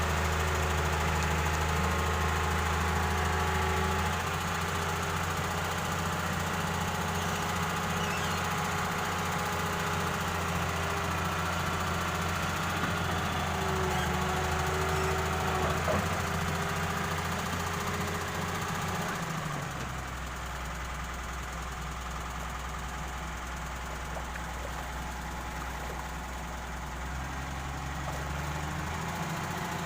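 Excavator's diesel engine running steadily, its low note shifting twice and dropping slightly in level about twenty seconds in.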